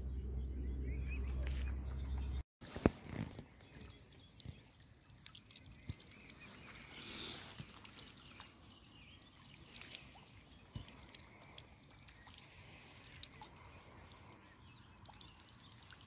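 Mute swans and their cygnets feeding in the shallows at the bank: soft dabbling and splashing with scattered small clicks. A steady low rumble fills the first two and a half seconds and cuts off suddenly.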